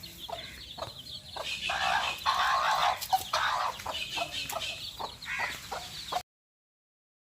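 Domestic hen clucking: a run of short clucks with louder, drawn-out calls in the middle, cutting off abruptly about six seconds in.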